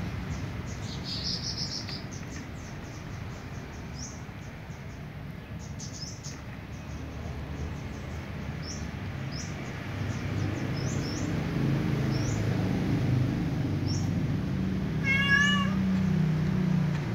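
A kitten mews once, a short wavering call, a little after fifteen seconds in. Small high chirps and clicks sound throughout, with a low rumble in the second half.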